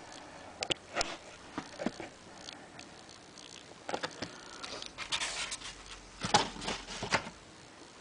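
Handling noise while a camera is set up: scattered light clicks and knocks with short bursts of rustling.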